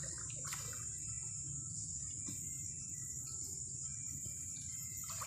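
Steady, high-pitched shrilling of insects in the countryside, over a low rumble.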